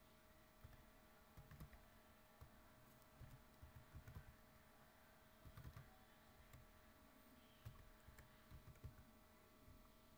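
Faint computer keyboard typing: irregular key clicks in short runs, with pauses between them.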